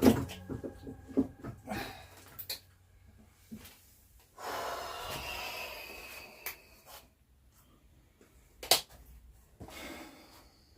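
Clunks and clicks of metal parts being handled while the Honda GL1200 carburettor assembly is worked loose, then a scraping drag about four seconds in and a sharp click near the end.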